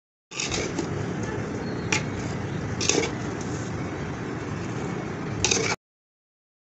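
A metal spoon clinking a few times against a steel bowl and a glass dish as fruit chaat is spooned out, over a steady background hiss. Short silent gaps come at the start and near the end.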